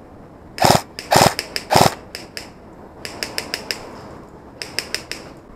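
Airsoft gunfire: three loud shots about half a second apart, then two quick clusters of fainter, sharper shots.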